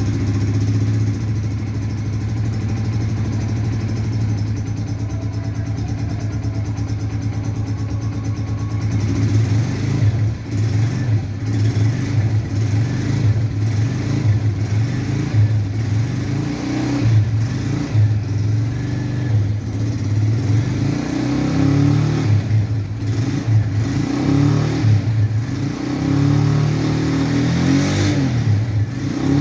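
An engine running steadily for about nine seconds, then revved up and down unevenly.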